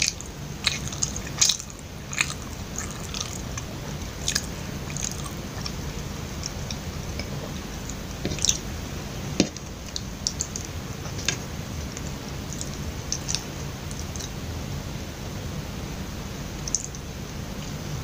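Close-miked chewing of soft, sticky glutinous-rice kuih: scattered wet mouth clicks and smacks, busiest in the first few seconds and again about halfway through, over a steady low hum.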